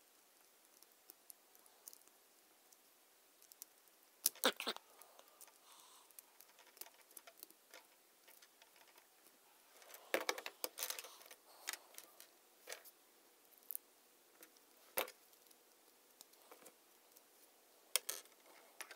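Lego Technic plastic parts clicking and clattering as axles, gears and bushings are handled and pushed together by hand. Scattered sharp clicks come in short bursts, the loudest about four, ten, fifteen and eighteen seconds in.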